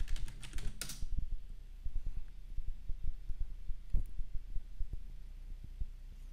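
Computer keyboard keys tapped in quick succession for about the first second as a password is typed, then a single click about four seconds in as the sign-in is submitted. A low hum with soft low thumps runs underneath.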